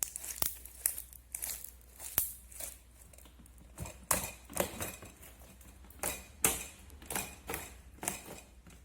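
Clear slime being mixed and kneaded by hand, giving irregular sticky clicks and pops.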